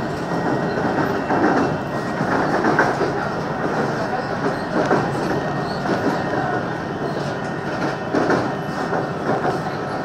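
Passenger train running at speed, heard from inside the carriage: a steady rumble of wheels on rail, with occasional clacks as the wheels pass over rail joints.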